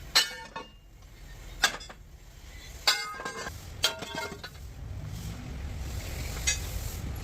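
Metal parts clinking and knocking together, about seven or eight scattered strikes, some in quick runs, each ringing briefly, over a low steady rumble.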